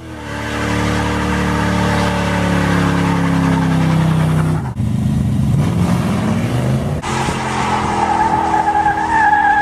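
Vehicle burnouts: an engine revving hard with its pitch sinking over the first few seconds, then after a cut another engine revving up. Tyres squeal steadily and high near the end.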